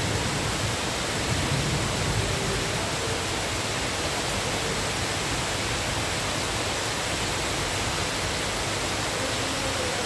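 Steady rain falling on garden foliage and paving, an even hiss that holds constant throughout.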